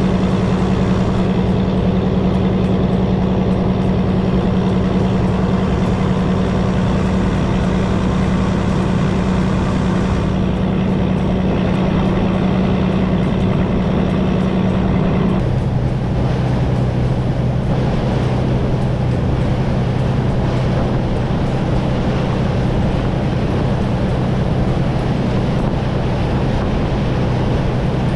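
Fishing boat's engine running with a loud, steady drone. About halfway through, its note drops suddenly to a lower steady pitch as the engine slows.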